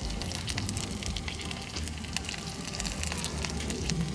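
Butter sizzling in a frying pan under a grilled cheese sandwich cooking on low heat, with a steady crackle of small irregular pops.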